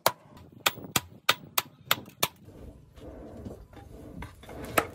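Hand hammer striking a red-hot steel knife blade on an anvil, about nine sharp strikes at roughly three a second, stopping about two and a half seconds in. A low steady rumble follows, with one more strike near the end.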